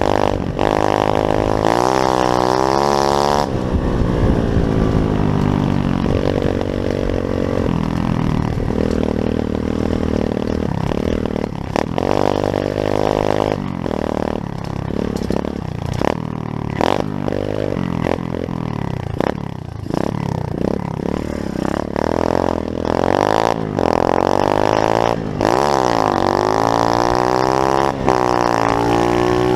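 Pit bike's small single-cylinder engine running and revving, its pitch rising and falling repeatedly as the throttle is worked.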